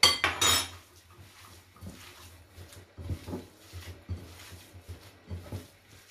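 A metal spoon clinks as it is set down at the start, then bare hands squish and knead minced meat for kefta in a bowl, with soft wet squelches coming irregularly every second or so.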